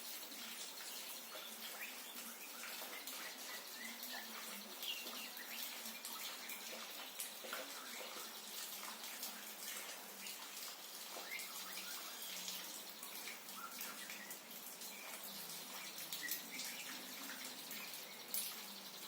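Steady hiss of falling water, as rain-water therapy for a caged white-rumped shama. Scattered short chirps from the shama and a few drip-like clicks sound through it.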